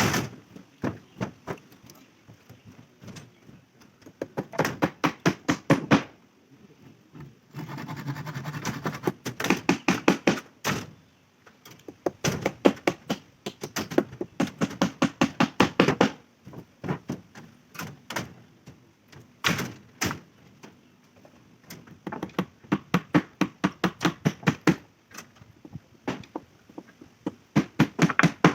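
Hammer blows on wooden shuttering formwork, probably driving nails: rapid runs of knocks at about five a second, broken by short pauses. A rasping scrape runs under the blows for a couple of seconds near the one-third mark.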